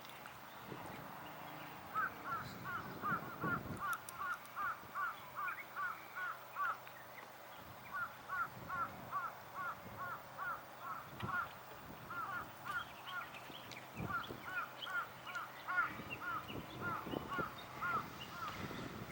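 An animal calling outdoors in rapid runs of short, identical notes, about three a second, four runs with brief pauses between them.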